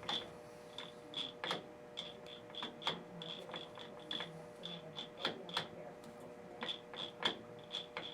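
Safe combination dial being turned by hand, giving a run of small, uneven clicks a few times a second with now and then a sharper knock, as the locksmith dials through combinations to open the safe.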